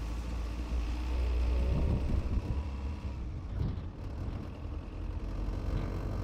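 Vehicle driving on a dirt road: a steady low rumble of engine and tyres.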